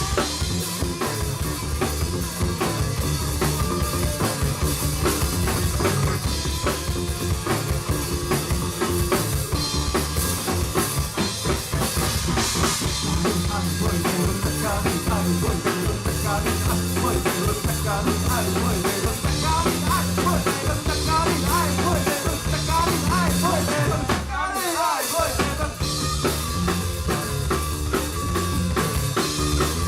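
Rock band playing with a busy drum kit, snare and bass drum to the fore. A wavering, bending lead line comes in about two-thirds of the way through, then the low end drops out for a moment before the full band comes back.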